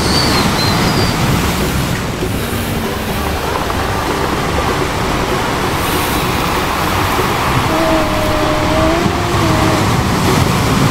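Loud, steady rumbling noise, with a brief wavering tone about eight seconds in.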